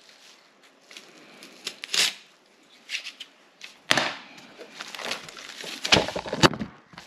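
Utility knife slicing through carpet felt, with scraping and rustling of handling. Louder knocks and scrapes come about six seconds in as the board is lifted and turned over on newspaper.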